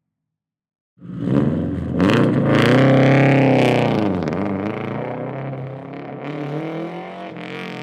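Car engine revving, its pitch rising and falling, starting suddenly about a second in.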